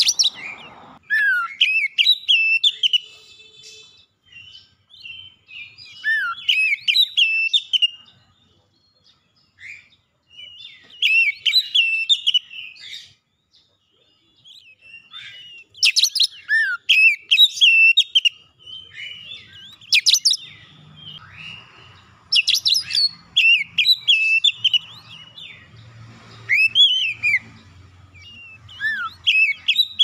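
Male oriental magpie-robin (kacer) singing: repeated bursts of varied, rapidly changing whistles and sharp chirps, a new phrase every few seconds with short pauses between.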